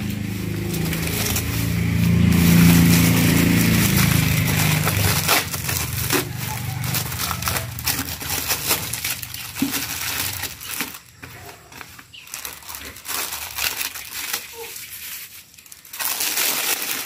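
Thin clear plastic packaging bag rustling and crinkling as it is handled and pulled open, in quick irregular crackles.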